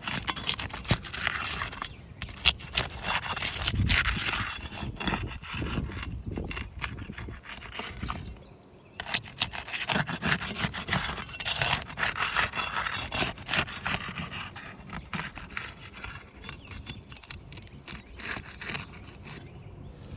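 Asphalt roof shingles being worked loose and scraped for a repairability test: repeated rough scraping and crackling rubs, with a short pause about eight seconds in.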